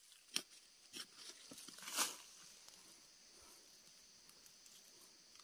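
Hand spade scraping and crunching into hard, dry soil: a handful of short strokes in the first two seconds, the loudest about two seconds in, then a faint steady high hiss.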